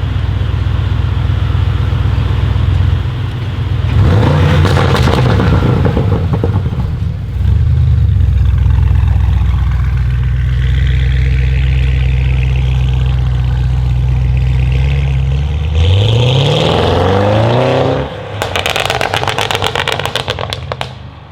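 Audi RS6 C8's twin-turbo 4.0 V8 through a Capristo straight-pipe exhaust with the particulate filter deleted, idling and revved briefly about four seconds in. Near the end it revs up again, and as the revs fall it gives a rapid string of crackles and pops on the overrun.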